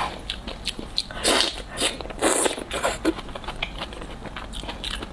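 Close-miked eating sounds from a mouthful of cold noodles: chewing and wet mouth noises, with a few louder bursts between about one and three seconds in.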